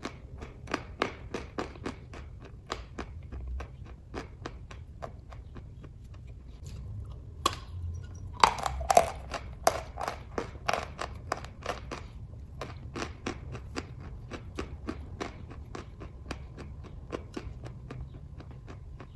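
Close-up chewing of kaju katli (cashew fudge): irregular moist mouth clicks, a few a second. There is a louder spell of clicks about halfway through.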